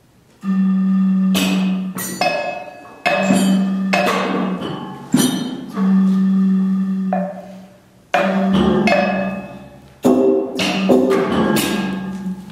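Live percussion music: a series of separate pitched, ringing strikes at irregular gaps of about one to two seconds, each decaying before the next, some with a held low hum under them.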